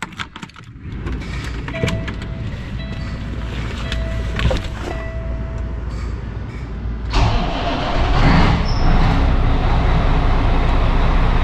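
Kenworth W900L's Cummins ISX diesel engine starting with the key about a second in and settling into a steady idle, while a dashboard warning tone beeps several times. About seven seconds in the engine sound gets louder and fuller.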